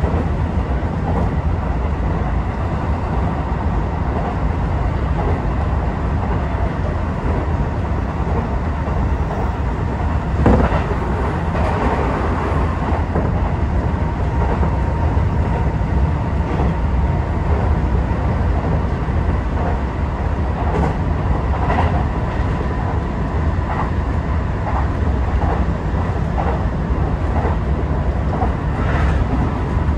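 Tokyo Metro 18000 series electric train running at speed, heard from the driver's cab: a steady rumble of wheels on rails, with a single knock about ten seconds in and a faint steady high tone from about twelve seconds on.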